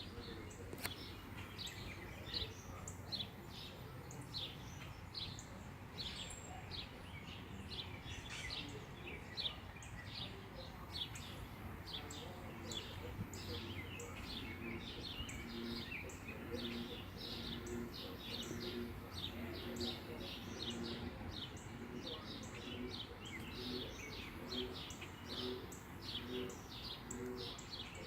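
Birds chirping continuously, several short high chirps a second. From about halfway through, a low pulsing sound repeats about once or twice a second.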